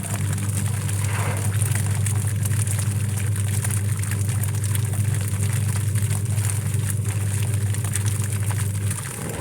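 Washing machine running with a steady low hum that holds one pitch and stops about nine seconds in.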